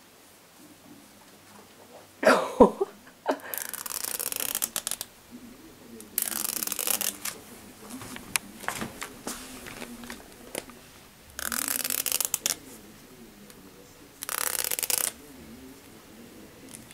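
Teeth of a fine-toothed comb flicked with a finger, a rapid crackling rattle, in four bursts of about a second each. About two seconds in there is a brief louder rustle with a knock.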